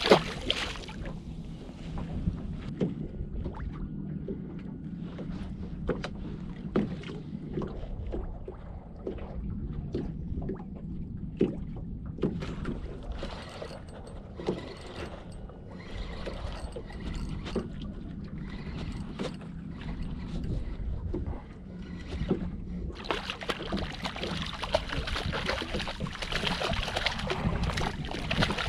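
A porgy splashes back into the water at the start. Then come scattered clicks and knocks of rod, reel and boat over a low hum while another porgy is fought on the jig. In the last few seconds a steady rush of splashing comes as the hooked porgy thrashes at the surface beside the boat.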